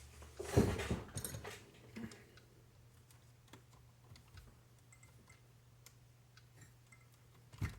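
Small hand-handled RC car parts clicking and rattling as the front wheel bearing and steering knuckle are fitted back together. There is a short burst of clatter about half a second in, scattered light ticks after it, and one sharp click near the end.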